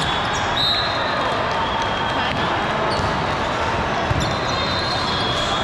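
Volleyball gym noise: a ball bouncing on the court floor over a steady murmur of spectator chatter, with a dull thud about four seconds in and a few thin, high squeaks near the start and the end.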